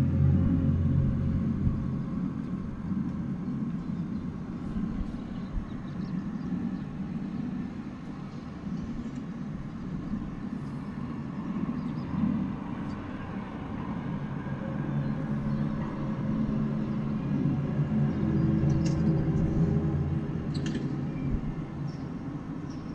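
Eerie low groaning drone from the sky, heard through an open window: several low notes sound together, hold, shift pitch in steps and swell and fade. It is loudest at the start, dies down midway and swells again near the end. The source is unidentified.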